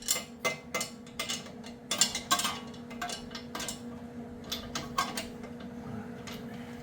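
Metal tools and parts clinking and clattering while being handled: a quick run of sharp clinks for about five seconds, then only a few more.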